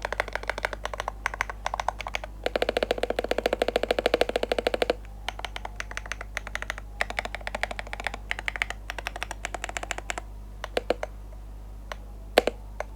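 Typing on an AULA WIN60HE Hall-effect keyboard with lubed Leobog magnetic switches, FR4 plate and acrylic case: a fast, even run of keystrokes, densest and quickest for a couple of seconds early on. Near the end it thins to a few scattered single keystrokes, one of them the loudest of all.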